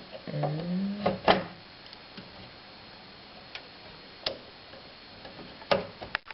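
Sharp plastic clicks and taps of a RAM module being pushed into a motherboard slot and its retaining clips snapping shut, a handful of separate clicks spread over several seconds, the loudest about a second in. A short rising vocal sound comes just before the first clicks.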